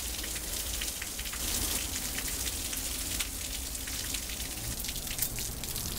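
Heavy rain pouring down: a steady hiss with many small drop ticks close by.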